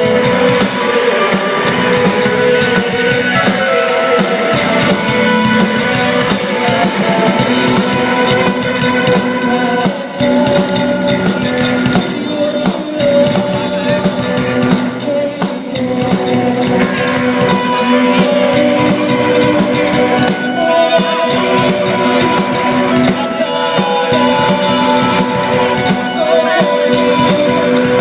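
Live psychedelic rock band playing loud: distorted electric guitars and a drum kit, with some singing.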